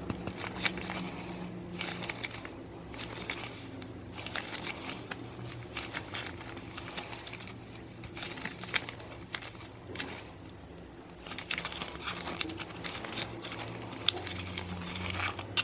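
Rubber-gloved hands stretching, squeezing and crumpling a rubbery styrofoam-and-acetone slime, giving irregular crinkling and small crackling clicks.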